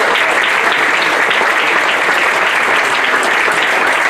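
Audience clapping steadily, a dense unbroken patter of many hands.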